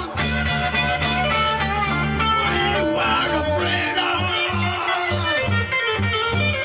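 Live band music with guitars over bass and no clear vocal line. About halfway through, the bass changes from held notes to a steady pulsing rhythm.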